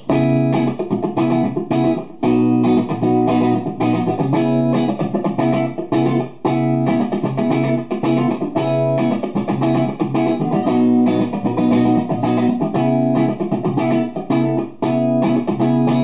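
Electric guitar, a Gibson Les Paul Goldtop with P90 pickups, played loudly through a Marshall amplifier: a continuous passage of chords and single-note riffs with only momentary breaks.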